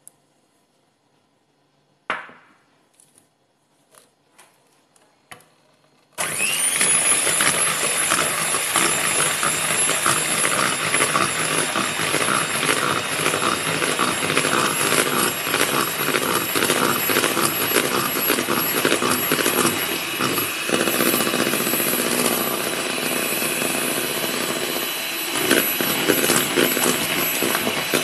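A few light knocks and clinks, then about six seconds in an electric hand mixer switches on and runs steadily, its beaters whipping egg whites in a plastic bowl until they foam.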